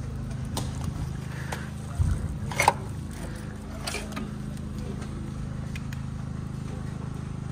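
Steady low drone of an engine running, with a few scattered knocks and clicks; the loudest are a low thump about two seconds in and a sharp click just after.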